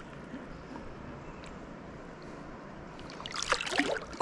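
River current flowing steadily over rocks, with a brief louder splashy burst about three and a half seconds in.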